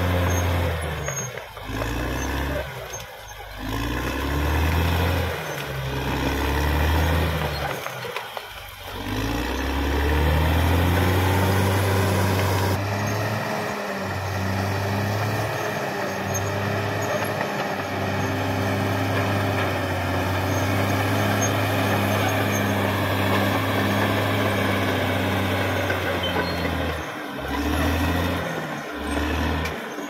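Caterpillar D6R XL bulldozer's diesel engine working hard while pushing soil and brush on a slope. Its pitch rises and falls through the first half, with brief drops in revs, then it settles into steadier running in the second half.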